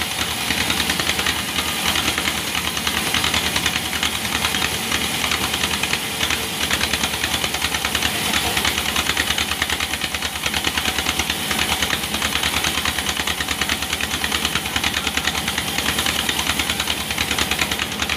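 Band sawmill running steadily as its blade cuts along a large log, a continuous hissing cut over the drive's fast, even pulsing.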